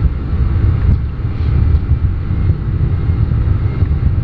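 Airbus A310's jet engines at takeoff power during the takeoff roll, heard from inside the aircraft as a loud, steady, low rumble.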